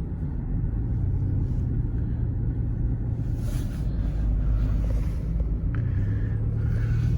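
A car driving along a road: a steady low rumble of engine and road noise, with the engine note growing stronger about a second in and again near six seconds as it pulls.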